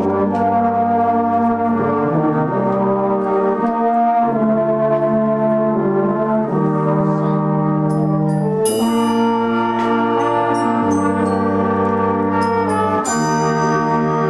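Youth brass band playing slow, sustained chords that change together about every two seconds over a deep bass line. Bright, high ringing notes join about nine seconds in.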